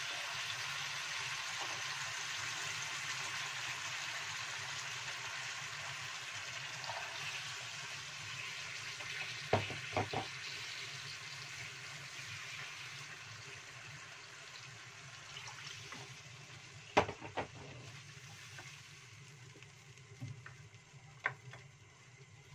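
Hot wok of chicken feet sizzling as water is poured in; the hiss dies away gradually as the liquid cools the pan. A few sharp knocks of the wooden spatula on the pan come about ten seconds in and again later.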